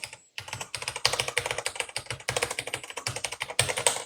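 Typing on a Ducky One 3 TKL mechanical keyboard fitted with its original Cherry MX switches: a fast, continuous clatter of key presses that starts a moment in.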